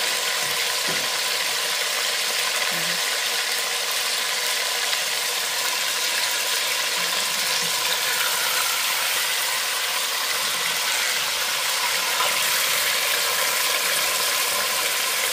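Pork ribs sizzling in hot oil in a stainless-steel pressure cooker pot as they brown, a steady sizzle.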